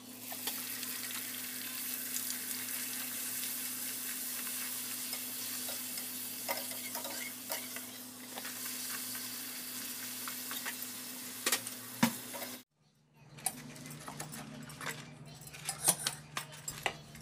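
A large puri frying in hot oil in a kadhai, sizzling steadily, with a few sharp clinks of the slotted spoon against the pan. About 13 seconds in the sizzling cuts off suddenly, followed by a quieter stretch of light clicks and knocks with a low hum.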